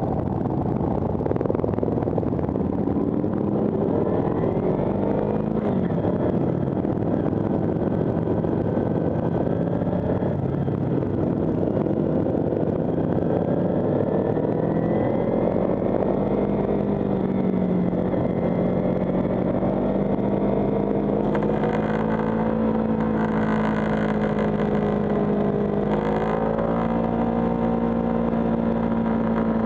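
Kawasaki Ninja 300's parallel-twin engine running under way, climbing in pitch as it accelerates through the gears over the first half, then holding a steady cruising pitch. Wind rushes over the microphone throughout.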